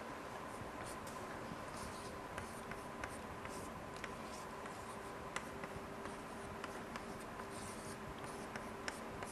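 Chalk writing on a blackboard: short taps and brief scratchy strokes as an equation is chalked out, over a faint steady hum.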